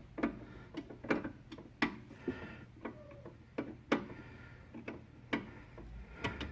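Brake fluid dripping from the opened brake line into a drain bucket: light, sharp ticks at an uneven pace, one or two a second.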